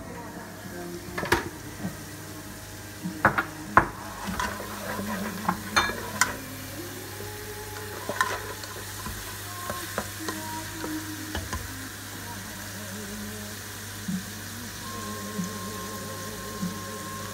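Minced pork sizzling in oil in the non-stick inner pot of a Noxxa electric pressure cooker on its sauté setting, with a spatula stirring and scraping through it. Sharp knocks of the spatula against the pot come mostly in the first half.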